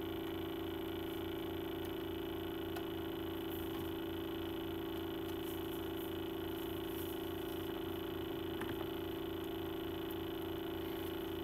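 Steady electrical hum with a few faint ticks from hands handling a CD box set.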